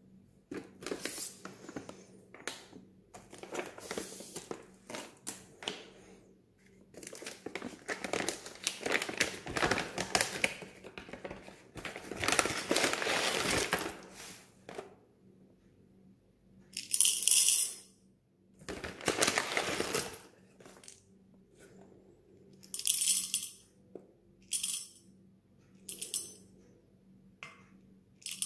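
A foil coffee bag crinkling and rustling as it is handled and opened. Then whole coffee beans rattle as they are poured, in several short, bright bursts, the last into a stainless steel cup.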